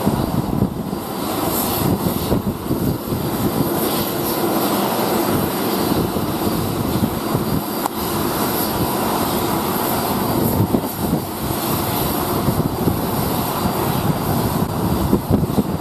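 Steady aircraft engine noise on the ramp, a continuous rush with irregular low buffeting from wind on the microphone.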